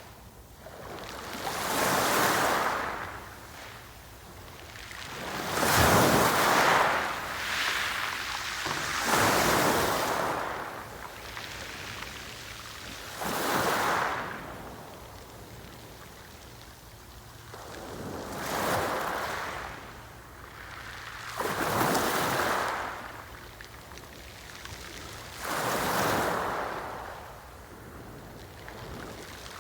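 Sea waves breaking on the shore, one every few seconds, each a rush of surf that swells up and then drains away.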